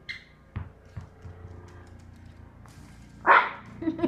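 Pomeranian giving one short, loud bark near the end, after a couple of light knocks.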